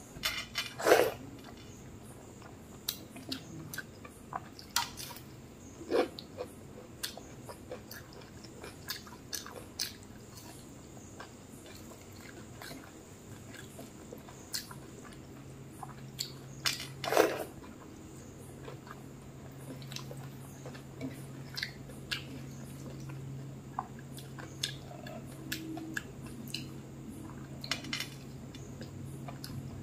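Close-miked eating by hand: chewing and mouth smacks, with wet squishing of fingers mixing rice and dal on a plate. Scattered sharp clicks and smacks run throughout, the loudest about a second in and around seventeen seconds in.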